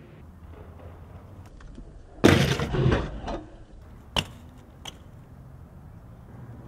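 BMX bike grinding along a waxed concrete ledge, a loud scrape of about a second, then landing with a sharp clack about four seconds in and a lighter knock shortly after.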